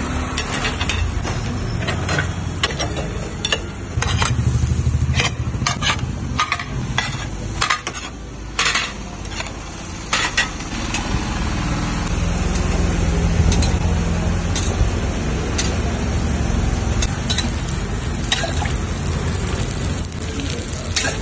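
Batter sizzling in small pans on a gas stove over a low rumble, with repeated clinks and scrapes of steel lids and a metal spatula, thickest in the first half.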